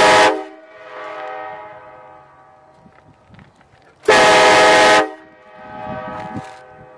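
Nathan Airchime K5LA five-chime train horn blown twice: a short blast right at the start and a longer one of about a second about four seconds in. Each is a loud, steady chord followed by an echo that fades over a couple of seconds.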